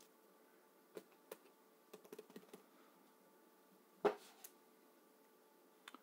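Light clicks and taps, with one louder knock about four seconds in, from a lidded paper coffee cup being handled and put aside.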